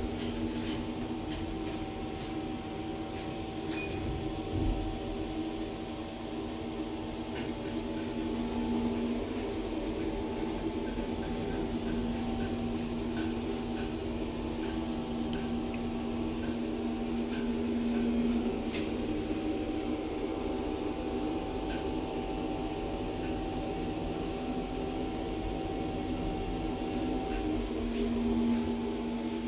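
CityLift glass passenger elevator car riding between floors: a steady hum with a low bump about five seconds in and a slightly louder swell near the end.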